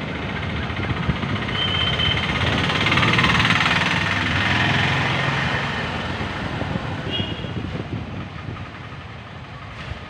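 Road traffic: a motor vehicle's engine passing close by, its noise swelling over a few seconds and then fading, with two short high beeps, one near 2 seconds and one near 7 seconds.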